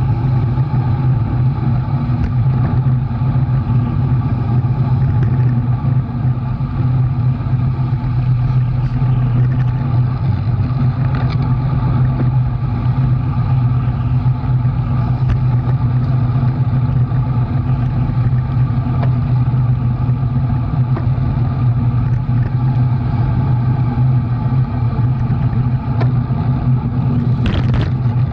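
A motor vehicle's engine running at a steady speed, a constant low hum with road and wind noise over it and no revving.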